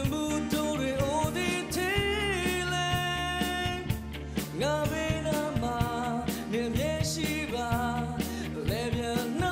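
A male vocalist singing a pop song into a microphone over a live band with drums, holding long sustained notes.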